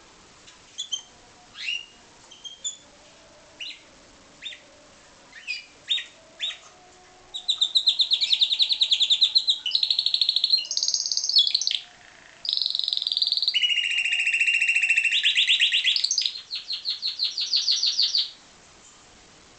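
Timbrado canary singing: a few scattered short chirps, then a long run of fast, rolling trills that shift between higher and lower pitches in several phrases, ending in a string of quick pulsed notes.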